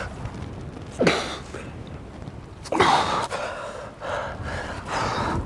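A rock climber's hard grunts of effort, two of them, about a second and about three seconds in. Each starts suddenly as a breathy cry and drops in pitch.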